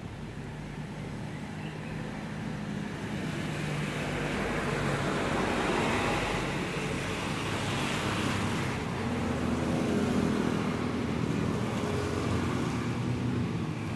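Motor traffic passing on a wet road: a low engine hum under a hiss of tyres on water that swells over the first several seconds and stays up.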